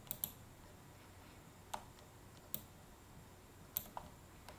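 Scattered single clicks of a computer mouse and keyboard, about seven in all at uneven intervals, over a faint room hiss.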